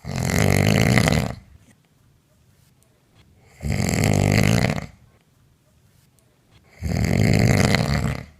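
A woman snoring loudly in her sleep: three long snores about three seconds apart, each lasting over a second.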